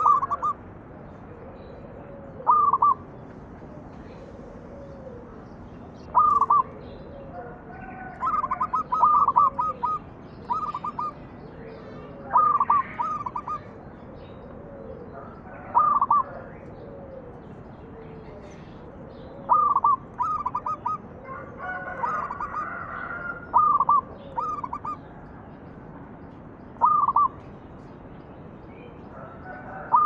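Zebra dove (perkutut) singing: a short phrase of two to five quick staccato notes every few seconds, about a dozen phrases in all. Fainter, lower calls from another bird sound between the phrases.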